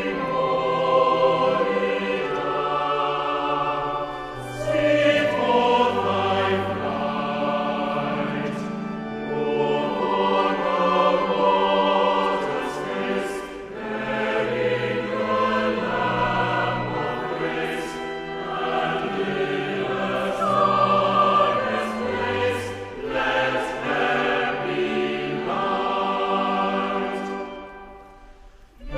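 Choral singing with instrumental accompaniment, a slow sustained hymn-like piece with long held notes, fading out near the end.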